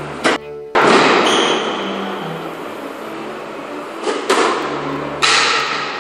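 Squash ball being struck by rackets and smacking off the court walls: about five sharp thwacks, two near the start and three from about four seconds in, each ringing on in the court's echo.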